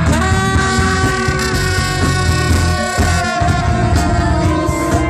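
Live band playing, with a horn section of trombone, trumpet and saxophone holding long notes over electric guitar and a steady low-end groove.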